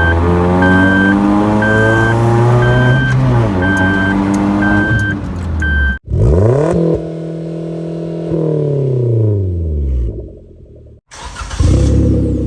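Suzuki Jimny JB74's 1.5-litre four-cylinder engine being revved through an aftermarket exhaust. The revs climb, drop and climb again while an electronic beep repeats about every half second. After a sudden cut, another rev rises, holds, then dies back down, and near the end the engine is running loud again.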